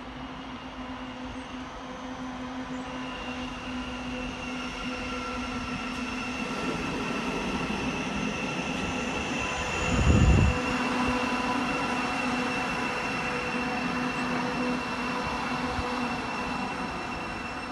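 Thameslink Class 700 electric multiple unit running in and slowing to a stop at the platform. Its electric drive whines in several steady tones over the rumble and squeal of the wheels. A short, loud low thump comes about ten seconds in.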